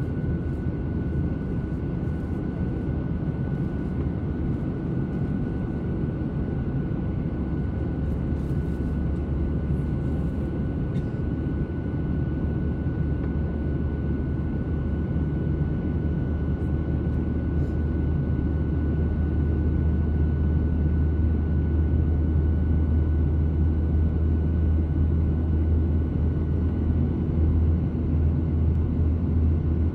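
Cabin noise inside a Boeing 737-800 climbing out: the steady rumble of its CFM56-7B engines and the airflow, with a thin steady whine above it. The rumble grows slightly louder about two-thirds of the way through.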